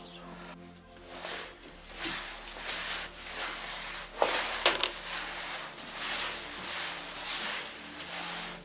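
Cloth mop wiped back and forth over bare wooden floorboards: a run of rough swishes, one or two a second, with two sharp knocks near the middle.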